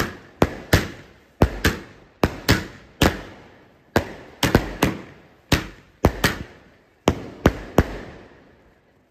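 Multi-shot aerial firework cake firing a rapid run of sharp bangs, about two to three a second and often in quick pairs, each trailing a brief crackling hiss. The shots stop about eight seconds in.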